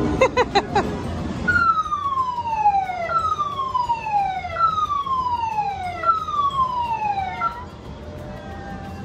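A few short, quick beeps, then a siren-like electronic tone that slides down in pitch four times in a row, each slide about a second and a half long.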